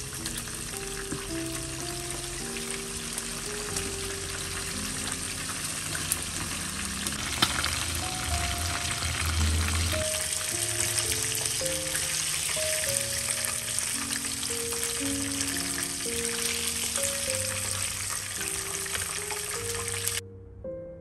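Chicken pieces deep-frying in hot oil in a pan, sizzling steadily; the sizzle cuts off suddenly near the end. Light background music plays underneath.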